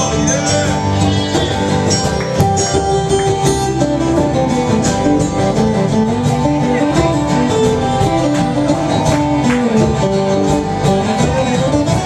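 A live band plays an instrumental passage with plucked guitar to the fore over a steady beat.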